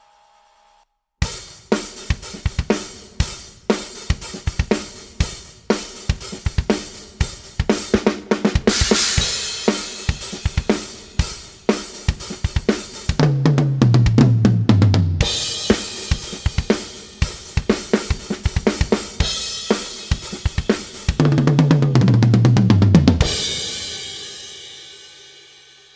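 Heavy metal drum kit played as a solo, starting about a second in: steady hits on kick and snare with cymbal washes, two fast tom rolls that fall in pitch, and a last cymbal crash ringing out and fading.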